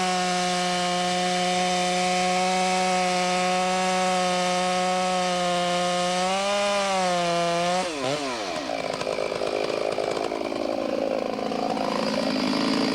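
Chainsaw running at high revs with a steady pitch while cutting the face notch in a standing tree. About eight seconds in, the revs drop sharply and the saw runs on more roughly and quieter.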